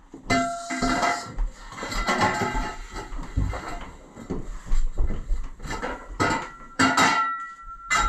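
Steel jack post (push jack) clanking and knocking as it is handled and stood upright, with the metal tube ringing after the hits soon after the start and again about seven seconds in.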